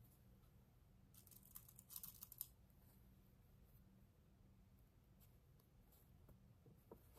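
Near silence, broken by a short run of faint crackly rustling about one to two and a half seconds in, as cotton patchwork pieces are handled and their seams nested together; a low steady hum underneath.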